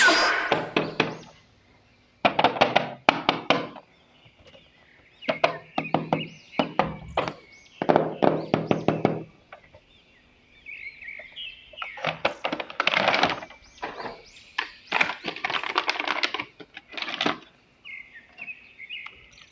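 Hard plastic action figures and their packaging being handled: bursts of clicking, clattering and knocking, with short quiet gaps between them.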